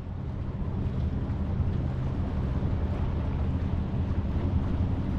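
Steady low engine rumble, with wind noise on the microphone.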